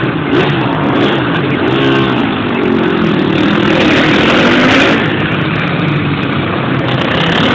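Several flat-track racing motorcycles running round a dirt short track, their engine notes overlapping and rising and falling as the riders throttle off and on through the turns and pass by.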